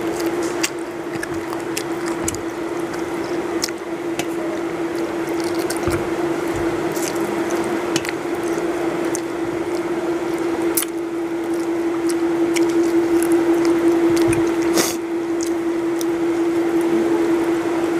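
Close-miked wet chewing and lip smacking as a person eats chicken curry by hand, with scattered sharp clicks. A steady hum runs underneath.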